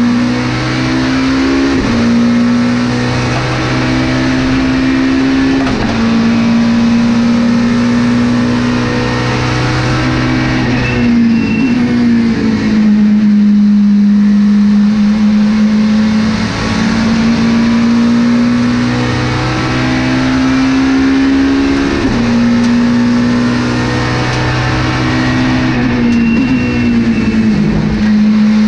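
Volvo S40 TWR Super Touring race car's engine heard from inside the cockpit, pulling hard on track with a gear change every few seconds, the pitch stepping at each shift. About halfway through the revs fall away and then climb again.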